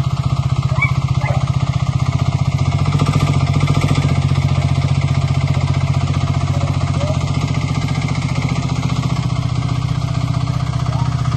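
Sherpa 10 mini loader's engine running steadily, a fast even chugging that rises slightly in level about three seconds in.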